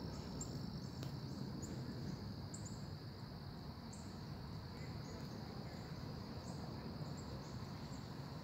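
Steady high insect trill with no breaks, with short high chirps repeating every half second to a second, over a low outdoor rumble.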